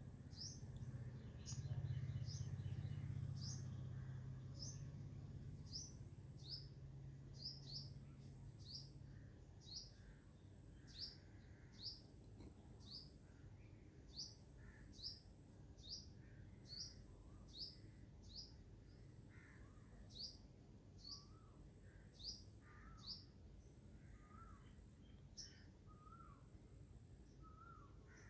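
Faint bird chirps repeating about once or twice a second, short and sharp, with a low hum under them for the first several seconds.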